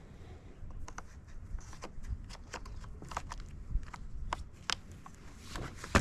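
Scattered light clicks, taps and scrapes of something being handled, with a louder knock near the end. No engine is running.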